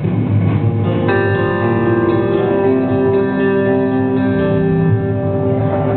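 Live band starting a song, led by guitar chords ringing out as long held notes that come in about a second in and change every second or so.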